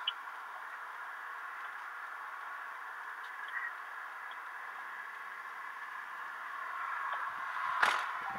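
Steady hiss inside a parked car, with a few small clicks and a sharper knock near the end.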